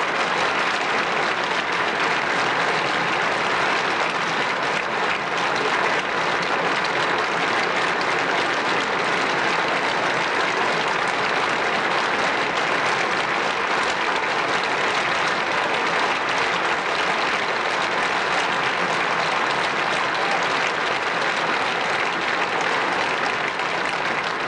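Large audience applauding steadily, a dense even clapping that neither builds nor fades.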